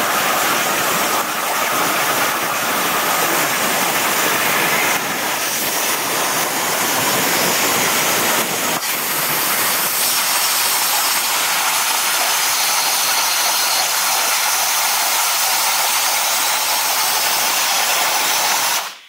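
Hypertherm Powermax 1250 plasma torch cutting 1-inch steel plate at 80 amps: a loud, steady hiss with a crackling rumble. About halfway through the lower rumble drops away, leaving mostly air hiss, and the sound cuts off abruptly near the end.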